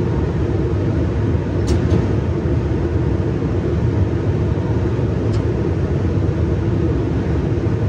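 Steady rumble of an electric regional train running along the line, heard from inside the driver's cab, with two faint short ticks about two and five seconds in.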